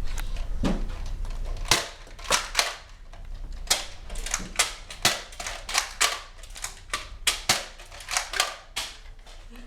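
Spring-powered Nerf blasters firing foam darts: a quick string of sharp clacks, about two to three a second, starting about two seconds in.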